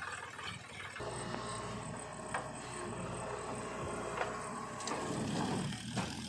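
Heavy diesel machinery running steadily, with a few sharp knocks and clanks over the engine.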